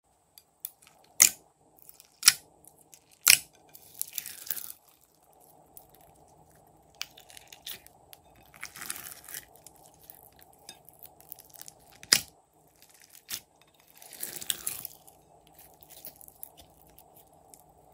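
Slime-making handling sounds: sharp pops, three about a second apart near the start and two more later, between stretches of crackly, crunchy noise.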